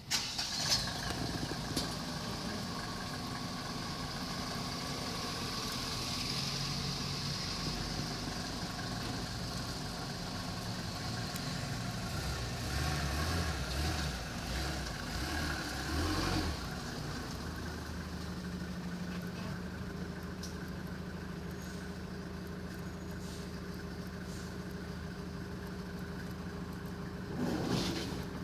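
Steady low hum of a running engine, with a few louder swells about halfway through.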